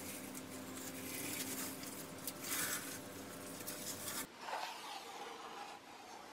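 Blue painter's tape being peeled off along a freshly caulked shower corner: faint tearing and rubbing, with a stronger rip about two and a half seconds in.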